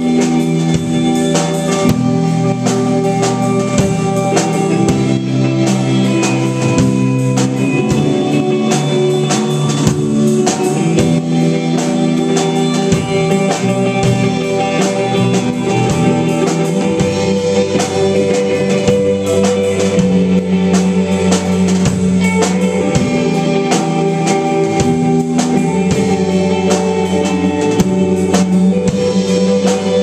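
Live rock band playing: electric guitars holding sustained notes over a steadily played drum kit, with the low end filling out about halfway through.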